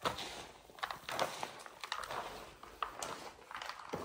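Hands scooping and rubbing through a loose, crumbly mixture in a basin: irregular gritty rustling swishes, about two a second.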